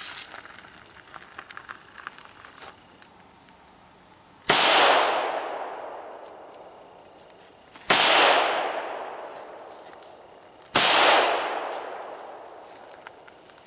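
Three gunshots about three seconds apart, each a sharp crack that rings out and fades over a second or more.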